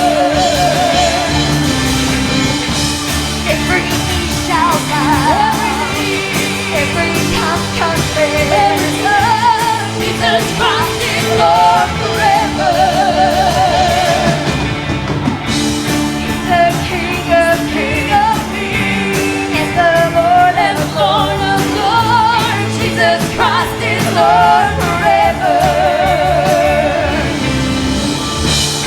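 Live church praise band playing an upbeat song with drums and bass, singing carried over a wavering vibrato lead melody.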